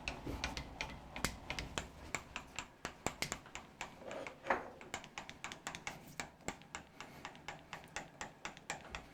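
Quick, irregular light clicks and taps, several a second, as small parts and tools are handled and cleared away at a workbench.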